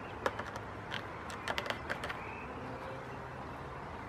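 Several sharp hard-plastic clicks and taps, bunched in the first two seconds, as a 3D-printed plastic mouse trap is handled and its end door opened to let the mouse out.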